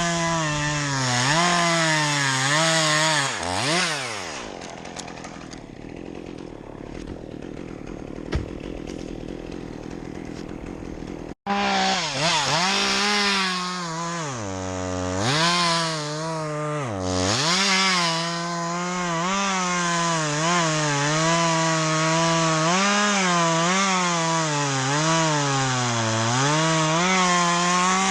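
Two-stroke chainsaw running at full throttle and cutting wood, its pitch dipping as the chain bogs down in the cut, then dropping to a quieter idle about four seconds in. After an abrupt break it is back at full throttle, dipping in pitch again and again as it cuts.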